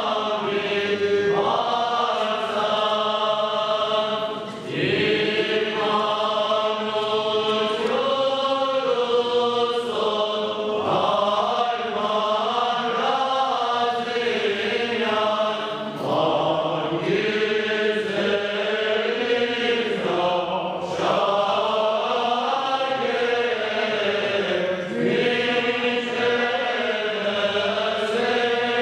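Choir of clergy chanting a slow Armenian liturgical hymn together, long held notes that change pitch every few seconds, with a few short breaks for breath.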